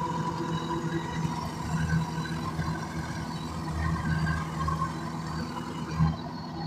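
Rice combine harvester running steadily, its engine and machinery holding a constant pitch.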